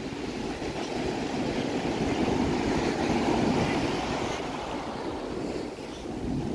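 Ocean surf breaking and washing up the sandy shore, swelling to a peak a few seconds in and then easing off, with some wind on the microphone.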